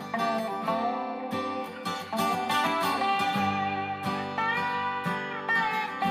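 Instrumental rock music: strummed acoustic guitar with a slide guitar line gliding between notes.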